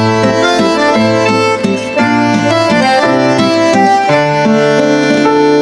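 Instrumental background music: a quick melody of short notes over held bass notes.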